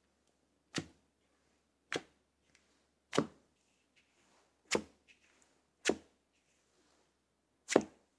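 Plastic house-shaped cutter pressed down into kinetic sand six times, roughly one press a second or so apart, each a short sharp impact that dies away quickly; the last press near the end is the loudest.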